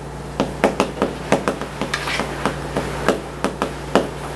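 Chalk on a chalkboard: quick, irregular taps and short scratches as Korean characters are written stroke by stroke, with a brief longer scrape about two seconds in.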